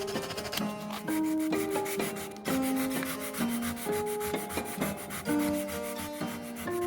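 Sandpaper rubbing on pine boards in quick repeated strokes, under background music with a clear melody.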